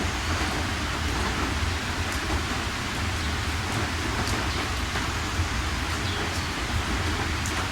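Steady heavy rainfall, an even hiss with a low rumble underneath and scattered drop ticks.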